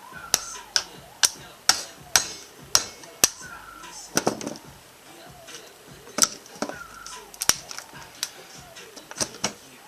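Hammer blows breaking open a 12-volt lead-acid battery's plastic case: a series of sharp strikes about two a second, pausing briefly around the middle, then resuming.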